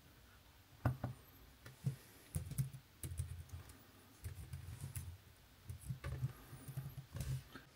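Typing on a computer keyboard: a few single keystrokes, then three short runs of rapid key clicks as words are typed.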